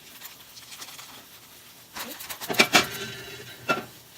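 Close-miked eating and tableware sounds: a cluster of sharp clicks and knocks about halfway through, one leaving a short ringing tone, then a single click near the end.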